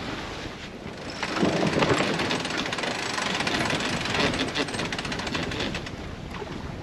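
Sailboat rigging during a jibe, with the sails and sheets being brought across to the other side: a burst of rapid rattling and flapping starts about a second in and eases off after about five seconds, over wind noise.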